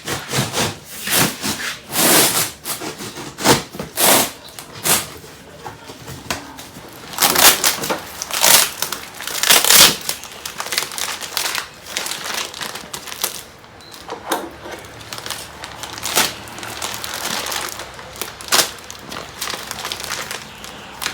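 Packaging being handled and torn open: irregular crinkling and crackling rustles, louder in clusters of bursts.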